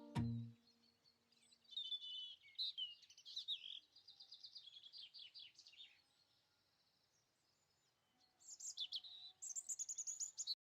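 Small birds chirping in quick, high trilling runs, in two spells separated by a lull of about two seconds. A held musical note dies away at the very start.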